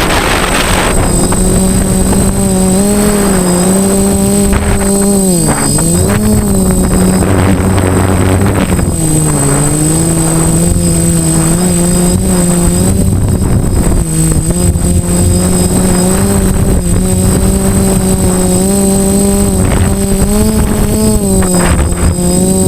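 DJI F450 quadcopter's four motors and propellers buzzing, their pitch dipping and rising with throttle changes, most sharply about five and a half seconds in, heard close up from a camera on the frame with gusts of wind noise and a thin steady high whine.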